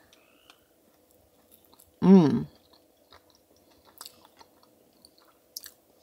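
A person chewing a mouthful of cinnamon bun close to the microphone: faint, scattered wet mouth clicks. About two seconds in comes a short, loud hummed voice sound.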